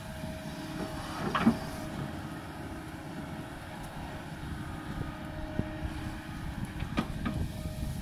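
Kobelco 220 hydraulic excavator running steadily while digging and dumping earth, with a faint steady whine over the diesel. A loud scrape or clank comes about a second and a half in, and a few sharp knocks of bucket and rock come near the end.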